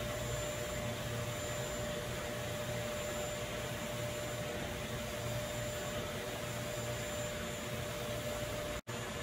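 Steady machine hum and hiss with one constant tone, unchanging throughout, cutting out for an instant near the end.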